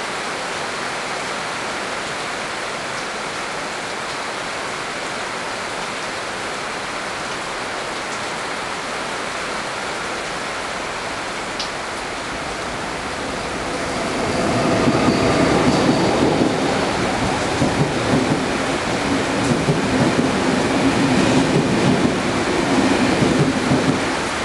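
Heavy rain pouring steadily. About 14 seconds in, the rumble of a through train hauled by Lok2000 electric locomotives grows louder and stays loud as it approaches and runs past on the rails.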